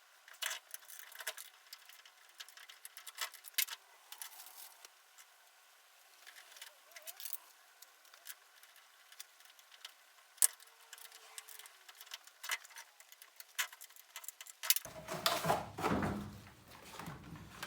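A saw chain being handled and fitted to a chainsaw bar: light metallic clinking and clicking of the chain links, in irregular bursts, with a louder cluster of handling knocks near the end.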